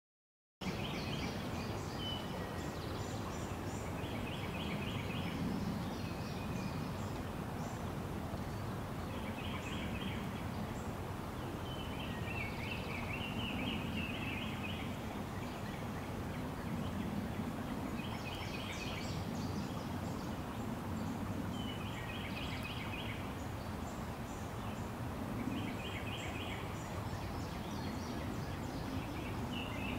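Open-country ambience: a steady background hiss, with a bird's short, rapid, chattering call repeating every few seconds.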